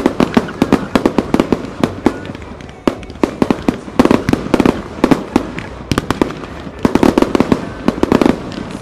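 Wide starmine firework barrage: aerial shells launched in rapid succession and bursting overhead, a dense run of sharp booms and cracks that comes in thicker clusters about four and seven seconds in and thins out near the end.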